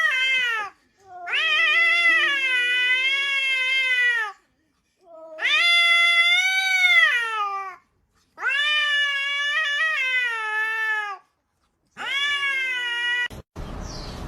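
A cat yowling in long, drawn-out howls about three seconds each with short silences between, the pitch wavering and sliding down at the end of each. Near the end it cuts to a burst of rough noise.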